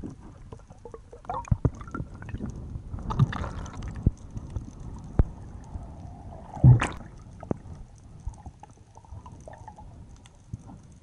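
Underwater water noise heard through a diver's camera housing: gurgling and sloshing, with scattered knocks and clicks, and one louder splash-like noise about two-thirds of the way through.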